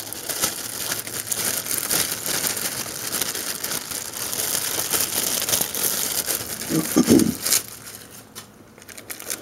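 Packaging crinkling and rustling as it is handled: a dense run of small crackles that dies down about seven and a half seconds in.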